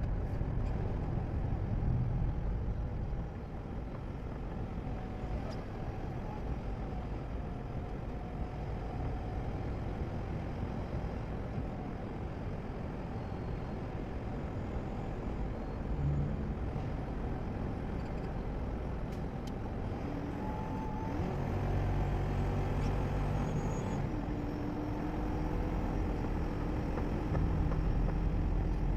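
Car driving along a road: a steady low rumble of road and engine noise, swelling a little about two-thirds of the way in and again near the end.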